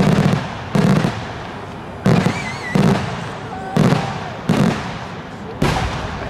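Aerial fireworks shells of a daylight show bursting overhead in quick succession: seven heavy booms, roughly one every three-quarters of a second, each dying away briefly. A short warbling whistle sounds about two seconds in.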